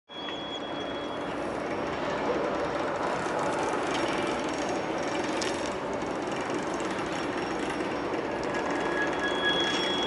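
BNSF mixed freight train with diesel locomotives crossing a steel railroad bridge: a steady running noise of wheels and cars on the track. A thin high tone sounds briefly near the start and again near the end.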